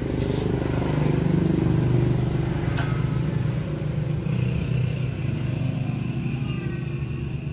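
A motor running with a steady low hum that swells over the first two seconds, with a sharp click about three seconds in and a faint high whine joining from about four seconds.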